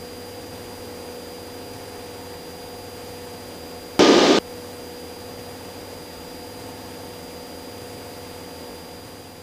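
Cessna 172SP's four-cylinder Lycoming IO-360 engine and propeller droning steadily in cruise. About four seconds in there is a brief, loud burst of hiss, like radio static.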